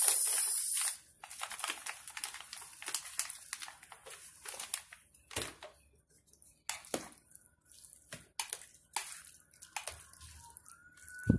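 Breadcrumbs shaken onto a moist chicken and cream mixture, a brief hissing patter at the start, then a wooden spatula stirring and folding the mixture in a metal baking pan with soft, wet, irregular scrapes and clicks. One sharper knock on the pan near the end.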